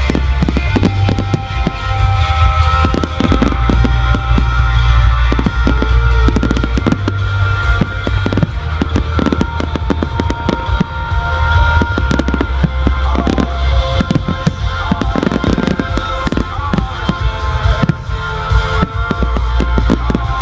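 Fireworks bursting and crackling, many sharp bangs in quick succession, over a loud music soundtrack with a heavy pulsing bass.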